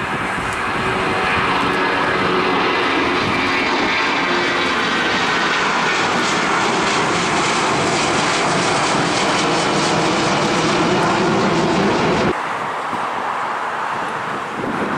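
Boeing 757-200 jet engines at climb power just after takeoff: a steady, loud jet roar with an engine whine in it. The sound cuts off suddenly about twelve seconds in, leaving quieter background noise.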